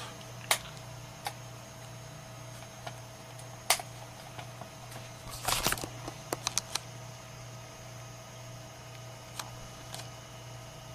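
Scattered clicks of a computer mouse working a map, single clicks here and there and a quick run of several past the middle, over a steady low hum.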